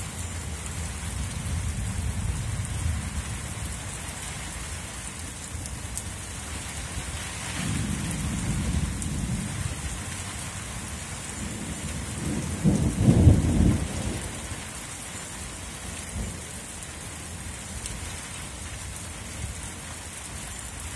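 Steady rain falling in a thunderstorm, with low rolls of thunder several times. The loudest roll comes a little past the middle.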